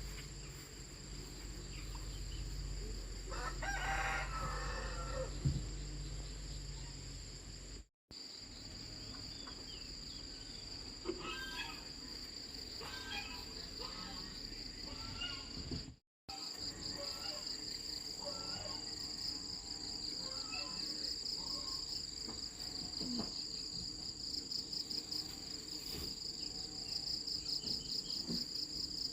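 A rooster crowing once, about four seconds in, over a steady high-pitched drone of insects, with shorter scattered calls later on.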